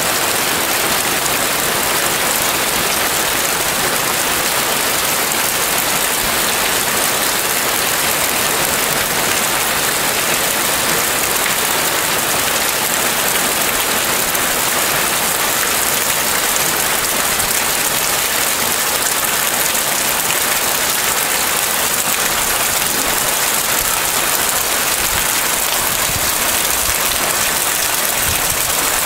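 Heavy rain falling steadily on dense leafy vegetation, an even hiss with no breaks.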